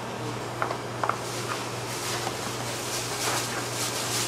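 Metal bench scraper cutting through soft bread dough and scraping on a plastic board: a few light taps, then a run of short scrapes from about a second in. A steady low hum runs underneath.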